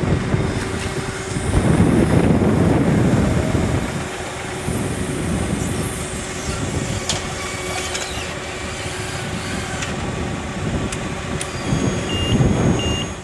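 Machinery running with a steady hum over a low rumble, a few clicks partway through, and two short high beeps near the end.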